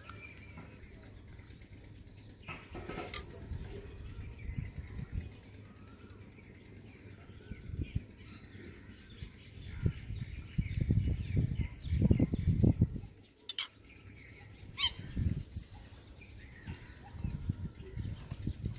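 Crisp puri shells cracking with a few sharp clicks as a thumb breaks through their tops to fill them. Birds chirp in the background, and a burst of low rumbling comes a little past the middle.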